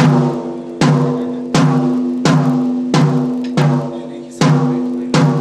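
A drum struck on a slow, steady beat, about eight strokes, each ringing on with a low pitched tone that fades before the next stroke.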